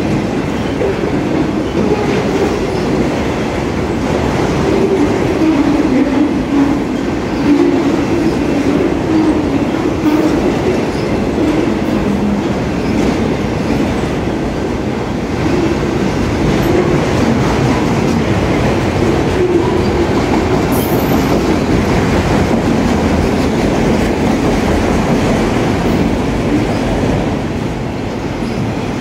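Freight train of enclosed autorack cars rolling past close by: a steady rumble and clatter of steel wheels on the rails.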